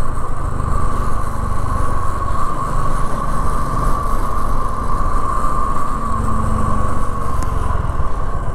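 Motorcycle running at a steady cruising speed on the road, its engine and wind noise over the microphone making an even rumble with a steady hum on top.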